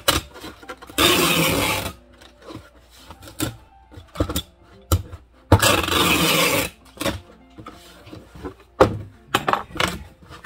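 Packing tape screeching off a handheld pistol-grip tape gun in two long pulls, about a second in and again midway, as a cardboard box is sealed. Short knocks and clicks of the box and dispenser come between the pulls.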